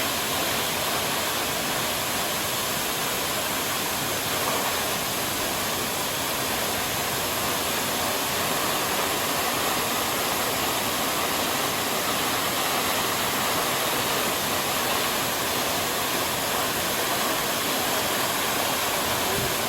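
Steady, even rush of a coastal waterfall pouring down, its falling water a constant roar with no change in level.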